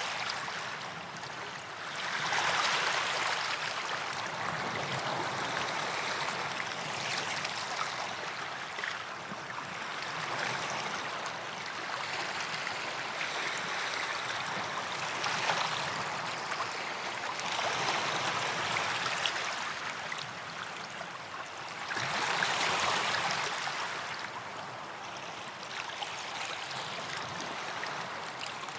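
Small waves lapping and washing up on a sandy beach. Each wash swells and fades, with about five stronger ones, the loudest about two seconds in and about 22 seconds in.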